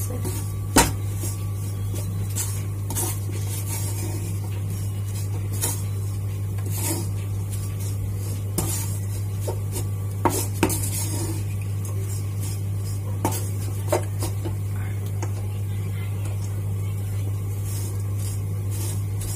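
Wooden spatula stirring and scraping grated dried coconut around a pan as it roasts to a reddish brown, with occasional sharper knocks of the spatula against the pan. A steady low hum runs underneath.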